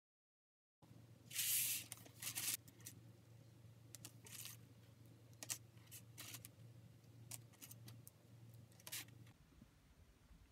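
Loose plastic Lego Technic pieces clicking and clattering as hands pick through and handle them on a tabletop, with a louder rustling scrape about a second in. A low steady hum runs underneath and stops near the end.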